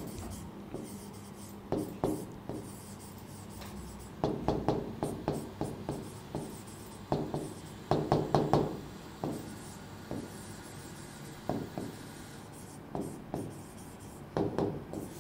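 Marker writing on a board: groups of short scratching pen strokes as words are written out, with short pauses between the groups.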